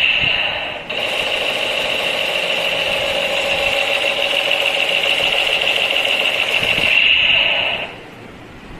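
Battery-operated toy machine gun playing its electronic rapid-fire sound effect through a small speaker. It breaks off briefly about a second in, starts again, and cuts off about a second before the end.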